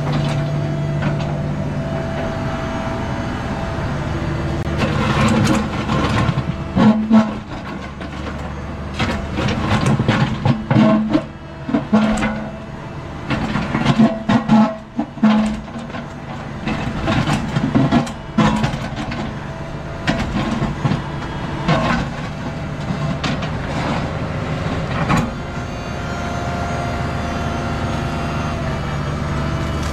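Cat 304E2 mini excavator's diesel engine running while it digs. Through the middle come repeated scrapes and knocks as the bucket bites into stony soil and gravel.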